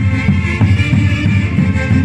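Instrumental music with a steady beat and a strong bass line.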